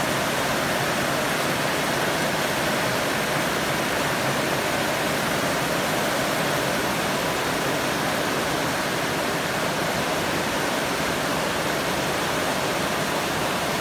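Heavy rain pouring steadily, an even rushing hiss with no breaks.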